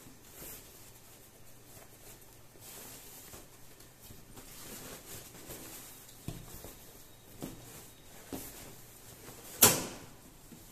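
Cloth rustling and being handled as a sewn fabric bag is pulled through to turn it right side out, with a few light knocks and one louder sharp knock near the end.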